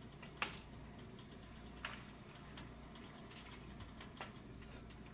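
A few short, sharp clicks of a metal utensil against a stainless steel pot as the pot of greens is worked, the first the loudest, over a low steady hum.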